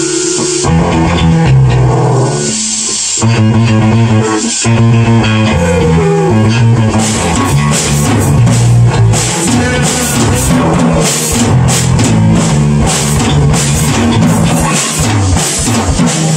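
Live rock jam on a Tama drum kit and guitar, the guitar playing repeated low riffs. About halfway through, the drumming gets busier with crashing cymbals.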